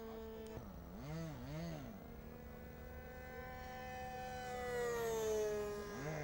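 Radio-controlled model airplane's engine running in flight overhead. Its pitch swoops up and down twice about a second in, then the note grows louder and its pitch falls as the plane passes, loudest near the end.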